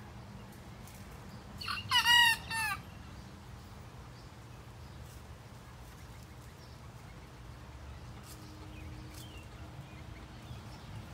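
Young cockerel crowing: one short, high-pitched crow of about a second, broken into three parts, about two seconds in. It is a juvenile's early, incomplete attempt at crowing.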